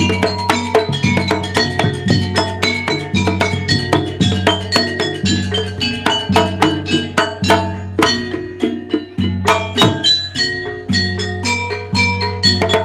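Jaranan gamelan music: fast interlocking strokes on ringing tuned metal percussion with drums, over a steady low tone.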